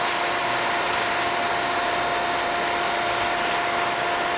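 Pipe-bending machine's motor running steadily: an even whirring hiss with a constant whine.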